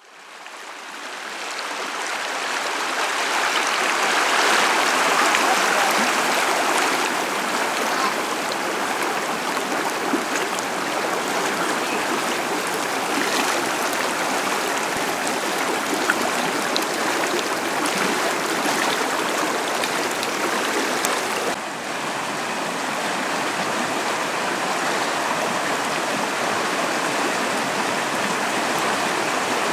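Small mountain creek rushing over rocks in shallow riffles: a steady rush of flowing water that fades in over the first few seconds.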